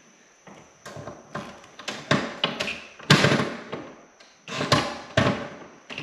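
Cordless drill-driver working screws in a metal electrical breaker panel: a string of separate knocks and short bursts from the driver, the loudest about three seconds in.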